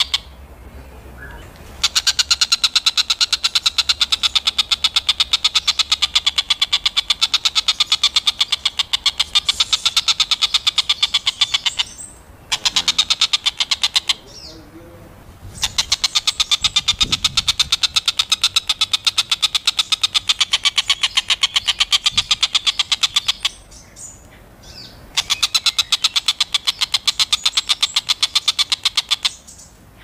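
Oriental dollarbird (tengkek buto) chattering: long bouts of rapid, evenly repeated high notes, broken by short pauses of a second or two.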